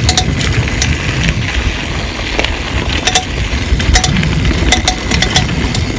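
Mountain bike rattling and clattering over rough ground while being ridden, with sharp irregular clicks and knocks from the frame and parts, under a heavy low rumble of wind on the microphone.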